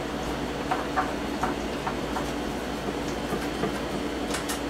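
Screwdriver backing screws out of a metal enlarger lamp housing: a few faint, short metallic clicks over a steady low hum.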